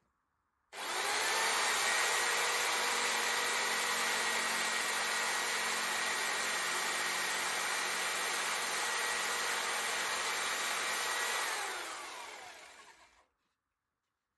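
An electric motor with rushing air, such as a household appliance, switched on suddenly about a second in and running steadily, then winding down with a falling pitch near the end as it is switched off.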